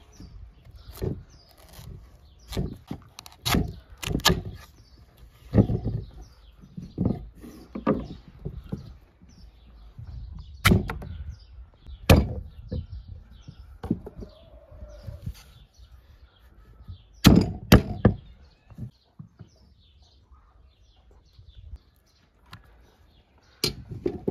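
Kitchen knife cutting through raw pumpkin and striking a wooden log-slice chopping block in irregular sharp knocks, with a quieter pause in the chopping near the end.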